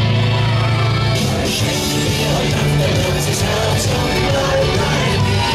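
Loud carnival party music with a steady bass line and some singing.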